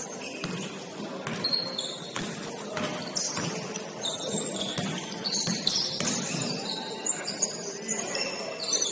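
Basketball game play in a gym: many short, high-pitched squeaks of sneakers on the court, with a basketball bouncing in scattered thuds.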